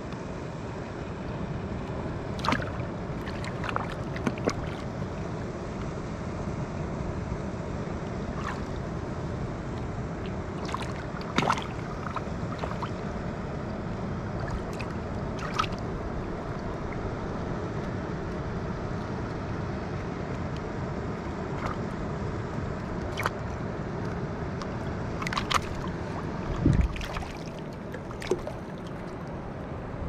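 Shallow water sloshing and lapping steadily around a wading angler, with scattered sharp clicks and small splashes while a fish is unhooked with pliers in the water; a heavier thump-splash comes near the end.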